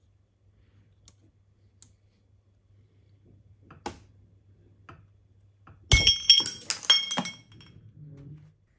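Faint clicks of needle-nose pliers on a spring-loaded oil pump plunger, then about six seconds in the small metal retaining part springs loose and lands with a rapid run of ringing metallic clinks as it bounces away.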